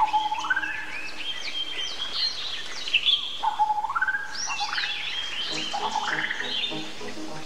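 Birds singing and chirping, many short overlapping calls and whistles, two of them rising slurs. From about five and a half seconds a low, pulsing croak repeats underneath.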